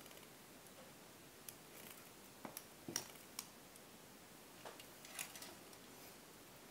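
Faint scattered clicks and ticks of round-nose pliers gripping and bending craft wire, the sharpest about three seconds in and a small cluster a little after five seconds.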